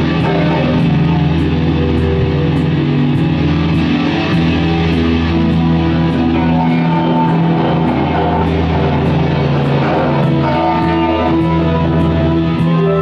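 Guitar music with long held chords over a light tick about twice a second, playing steadily throughout.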